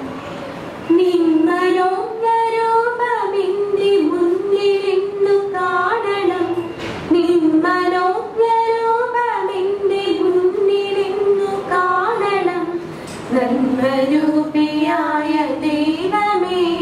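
Women singing a slow prayer song together into a microphone, in phrases of long held notes with short breaks for breath.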